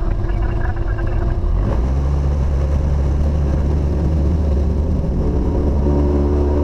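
Light aircraft's piston engine and propeller running. The engine note steps up in power about two seconds in and builds further near the end as the throttle is opened for the takeoff roll.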